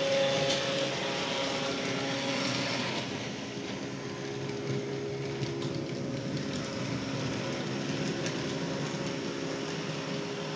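H0-scale model trams running on layout track: a steady whirr from their small electric motors, louder over the first three seconds, with a few light clicks.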